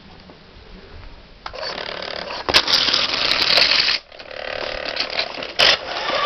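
Remote-control car converted into a monster truck: its motor and gears whirring in bursts. The whirr starts about a second and a half in, cuts out suddenly about two-thirds of the way through, then runs again with a steady whine and a sharp click near the end.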